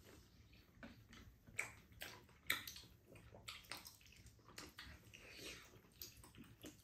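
Faint eating sounds from people eating tteokbokki: wet chewing and mouth smacks mixed with light clicks of chopsticks and a spoon, the sharpest smacks about one and a half and two and a half seconds in.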